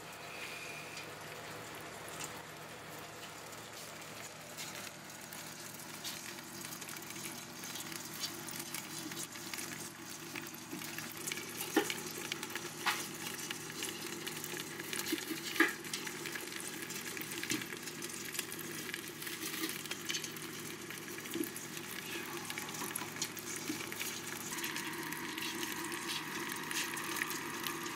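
A mass of live baby crabs crackling and clicking in a stainless steel pot, a steady sizzle-like crackle with scattered sharp clicks.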